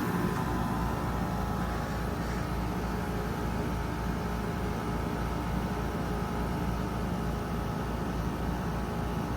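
A 2022 3-ton Trane XR14 heat pump's outdoor unit running steadily: compressor hum and fan noise, with an even low pulsing.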